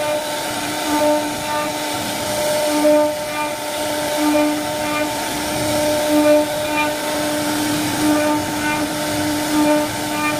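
CNC router spindle running with a steady high whine while cutting wood, the whine swelling and easing in short, irregular stretches as the bit bites into the wood.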